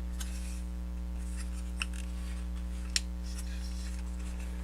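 Steady low hum with faint rustling, and two small sharp clicks, the first nearly two seconds in and the second about a second later, as the plastic parts of a transforming robot toy figure are handled and moved.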